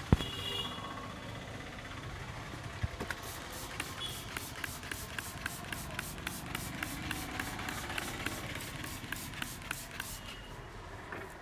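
A barber's hands slapping a customer's head in a head massage: one sharp loud smack at the start, then from about three seconds in a quick, even run of hand slaps, about four a second, that stops near the end.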